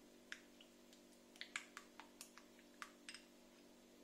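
A dozen or so light, irregular clicks of a silicone pastry brush knocking against a small glass bowl as egg yolk is beaten for glazing, over a faint steady hum.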